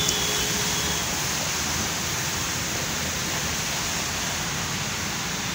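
Cars and other vehicles driving through a flooded road, tyres swishing through standing water as a steady wash of noise.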